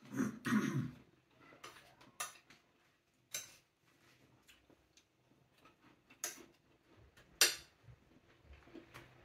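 Metal spoon clinking and scraping against a plate and glass bowl of cream and strawberries: a handful of separate clinks and taps, the loudest about seven seconds in.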